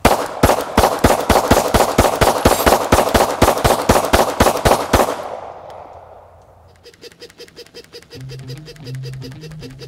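A 9mm semi-automatic pistol fired in a rapid string, about five shots a second for some five seconds, with the echo dying away after the last shot. Rhythmic intro music with guitar starts about seven seconds in.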